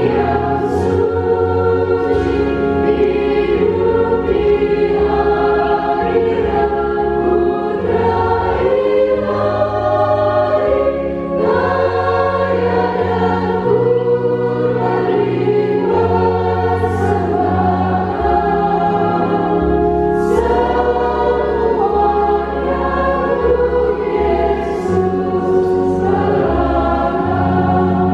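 A choir of women religious sisters singing a hymn together in held, slow-moving notes, over low sustained notes that change every couple of seconds.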